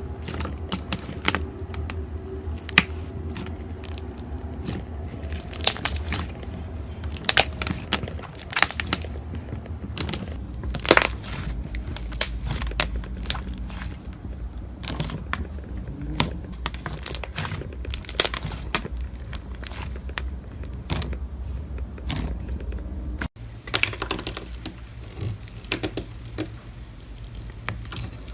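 Crunchy ASMR slime being crushed and squeezed by hand, giving many sharp, irregular crackles and pops. The sound changes abruptly about 23 seconds in, where another clip begins.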